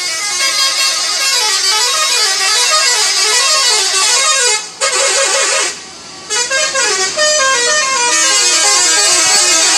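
Multi-tone 'telolet' bus horn playing a quick tune, its notes stepping up and down in rapid runs. It breaks off briefly twice near the middle.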